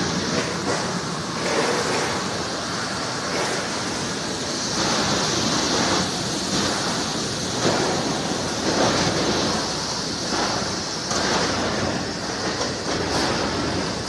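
Air-bubble vegetable washing machine running: water churning and bubbling hard in its stainless-steel tank under spray nozzles, a steady rushing noise that swells and eases.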